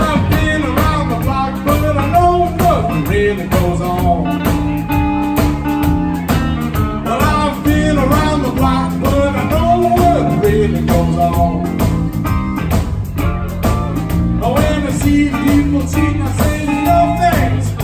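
Live electric blues band playing: drums and bass keep a steady beat under a semi-hollow electric guitar, with a lead line bending in pitch.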